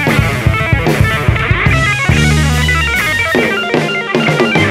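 Electric guitar (a Telecaster through effects pedals and a small Fender Champ amp) playing quick runs of notes in a rock band groove, with electric bass and a drum kit.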